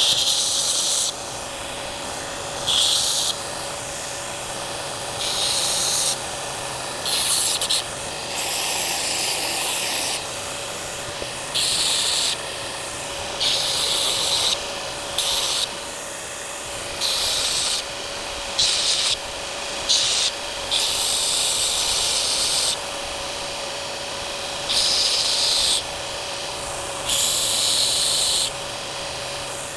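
Steel knife blade being ground or abraded in repeated strokes, each a hissing rasp about a second long, roughly one every two seconds. A machine hums steadily underneath.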